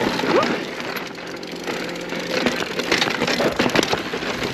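Mountain bike rolling fast over a rocky trail: tyres crunching over gravel and rock, with a dense run of rattling clicks and clatter from the bike.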